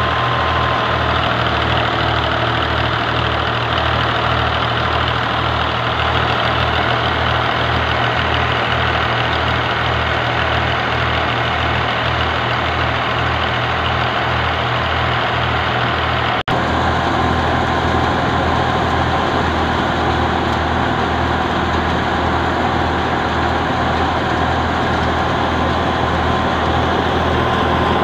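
Tractor diesel engine running a PTO-driven threshing machine, which is threshing mustard. It makes a loud, steady mechanical drone with a low rhythmic beat of about two a second. The sound shifts abruptly about sixteen seconds in.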